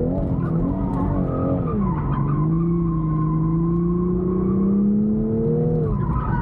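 Drift car's engine held at high revs through a continuous drift, with the tyres squealing. The revs fall sharply about two seconds in, climb slowly for several seconds, then drop again near the end.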